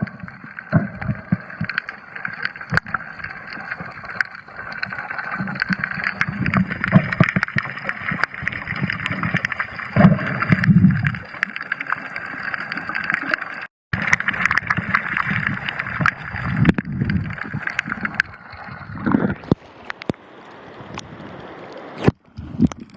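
Water sloshing and splashing, with scattered clicks and a faint steady high whine. The sound cuts out completely for a moment a little past halfway.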